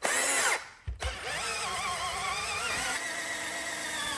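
Hand-held electric drill driving a 12-inch auger bit into wood. It gives a short burst, then from about a second in runs steadily, its pitch wavering as the bit works under load.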